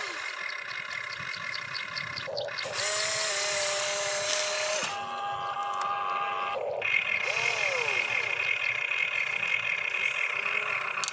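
Electric motors of a remote-control model excavator whining as it raises its boom and swings its upper body round. The whine stops and starts again several times, with short rising-then-falling glides in pitch as a motor speeds up and slows down.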